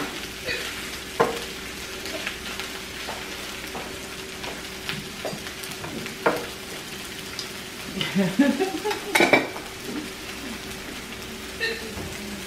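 Food sizzling steadily on a hot tabletop barbecue grill, with utensils clicking and scraping against the pan now and then and a short burst of clatter about eight seconds in.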